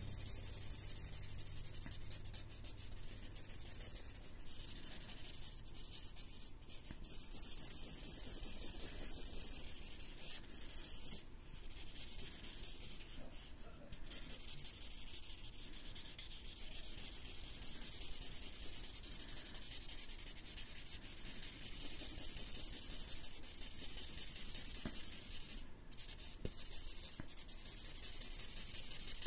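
Sharpie marker tip rubbing and scratching across paper in quick back-and-forth shading strokes, with a few brief breaks where the tip lifts.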